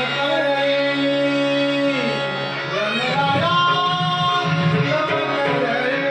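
Marathi devotional bhajan music: long held instrumental tones at the start, then singing voices come in about two to three seconds in.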